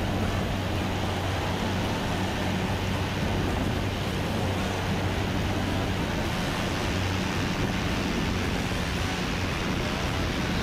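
Cessna 208 Caravan's turboprop engine and propeller running steadily on final approach to land, heard inside the cockpit as a low drone under the rush of air past the airframe.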